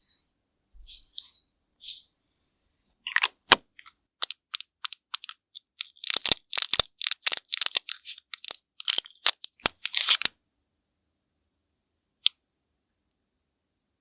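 Close-up ASMR crackling: a couple of soft, high scratchy strokes, then about seven seconds of sharp, crisp crackles and taps coming thick and fast. They stop suddenly, and one lone tick follows about two seconds later.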